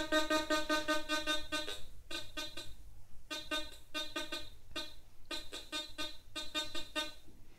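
Teknetics T2 metal detector's audio signalling a bronze target passed over the search coil in an air test: one long tone, then a run of about five shorter beeps of the same pitch, each under a second. A clear, repeatable signal, taken as a good response at about 25–26 cm.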